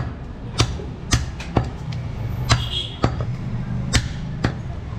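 Heavy butcher's cleaver chopping a goat leg through meat and bone into pieces on a wooden log chopping block: about seven sharp whacks at uneven intervals, over a steady low background hum.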